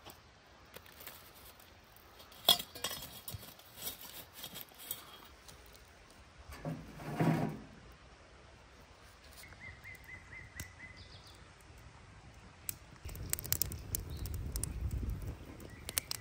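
Scattered clinks and knocks of kitchenware being handled, with a short rustling swell about seven seconds in and a low rumble with more clicks near the end.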